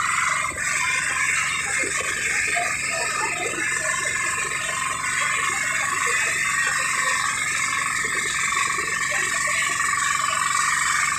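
A small wooden outrigger boat (bangka) underway: its motor runs steadily, with water and wind noise on the microphone.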